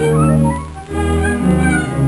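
Instrumental background music: sustained low bass notes with higher melody notes above them, the harmony changing a few times.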